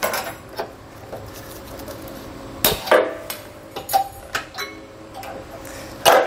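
Wire cutters snipping the excess wire off a handle nut, giving a series of short, sharp metallic snaps. The loudest come about three seconds in and near the end.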